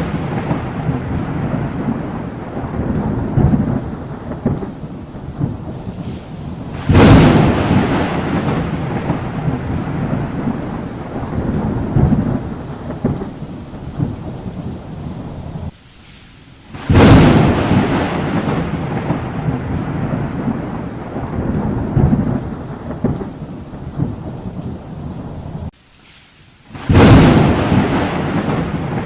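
Thunderstorm: thunder cracks three times, about ten seconds apart, each clap sudden and then rumbling away over several seconds, over steady rain. The sound drops out briefly just before the second and third claps.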